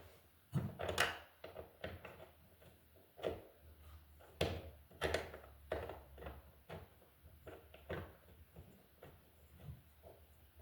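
Irregular clicks, taps and light knocks of metal light-fixture parts being handled and fitted to the mounting bracket.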